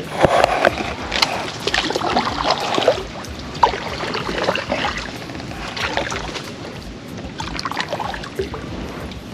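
Pedal-driven kayak moving through the water, with irregular knocks, scrapes and rustles throughout.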